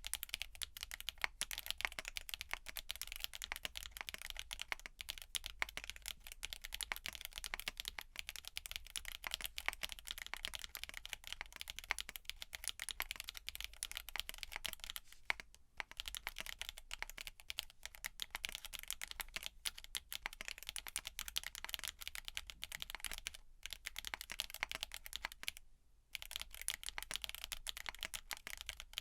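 Continuous typing on a TX66 custom mechanical keyboard with factory-lubed GEON Black tactile switches, in a sandwich-mount build with an aluminium plate and case foam, under CMK BOW keycaps, giving a clacky sound. The keystrokes stop briefly about halfway through and again a few seconds before the end.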